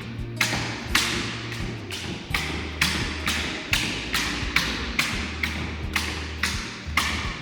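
Background music with a steady beat: sharp drum hits about twice a second over a low bass line that moves between held notes.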